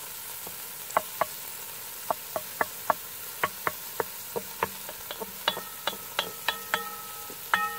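Diced bell and jalapeño peppers sizzling in hot fat in a cast iron Dutch oven, with a steady hiss. A wooden spoon stirring them knocks against the pot in quick, irregular clicks, some with a brief ring.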